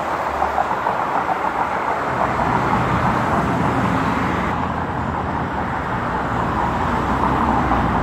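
Steady road traffic noise, an even rushing sound with no clear engine note, that starts and stops abruptly at edits.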